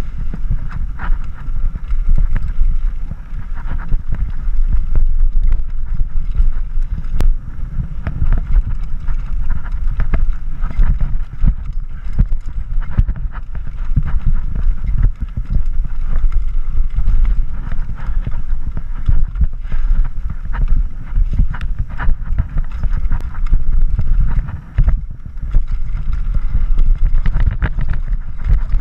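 Mountain bike descending a rough dirt-and-rock trail: wind buffeting the microphone over the tyres on the dirt, with frequent knocks and rattles from the bike going over bumps and rocks.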